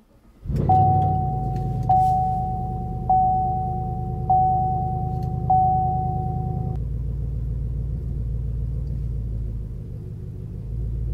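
A pickup's engine rumbling in the cab while the dashboard warning chime dings five times, about a second apart, then stops. The low engine rumble carries on after the chimes.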